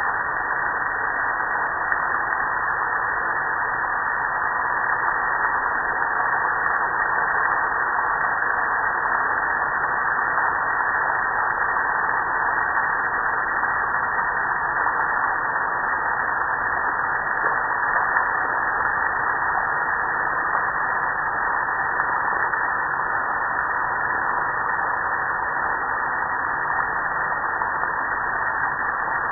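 Water spray hitting a soapy gas grill and running off its metal lid and panels: a steady, even hiss with no breaks.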